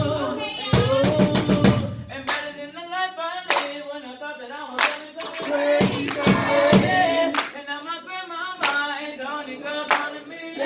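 A vocal group singing, with hand claps struck through the song.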